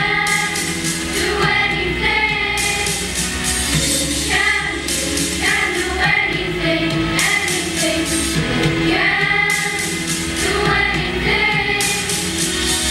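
A choir of children singing a song with instrumental backing, heard as steady background music.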